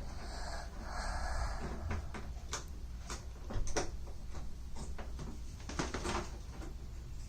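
Clicks, knocks and a short scrape of door-lock hardware being handled and fitted on a door, with the scrape in the first second or two and irregular sharp clicks after it.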